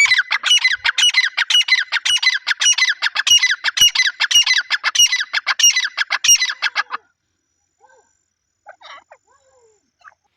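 Grey francolin (teetar) calling: a loud, rapid run of repeated harsh notes, about four a second, that stops abruptly about seven seconds in, followed by a few faint short calls.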